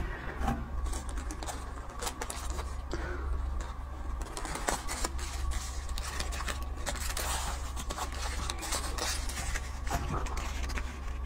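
Paper cake wrapper crinkling and rustling in many small, quick crackles as it is handled and peeled back from a cream cake.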